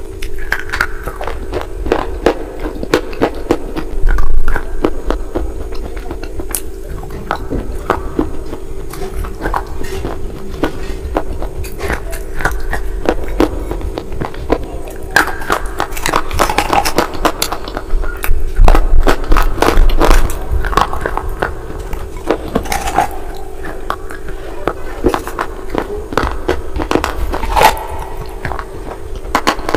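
Biting and chewing of slate-pencil crumbles mixed into a wet paste: rapid gritty crunches, loudest about four seconds in and again around twenty seconds in, over a steady low hum.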